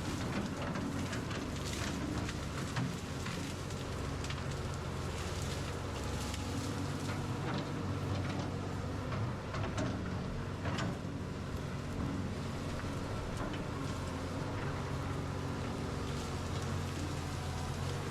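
Excavator's diesel engine running steadily, with scattered knocks and scraping as the bucket digs into soil.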